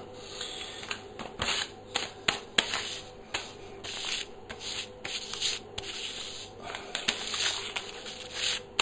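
Sheet of paper being folded in half and its crease pressed flat with the fingers: a run of short, irregular rustles and crackles.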